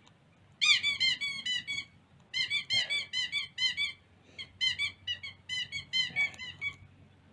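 Squeaker toy horn squeezed over and over: quick high squeaks, several a second, each rising and falling in pitch, in three runs with short pauses between.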